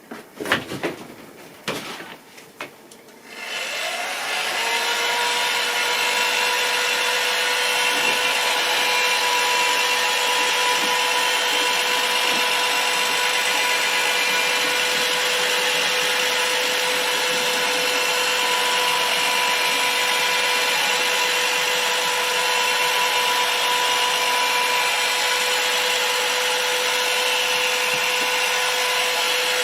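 A few light handling clicks, then a heat gun switches on about three seconds in. Its fan whine rises and settles into a steady blowing hum, heating the adhesive that holds the phone's display.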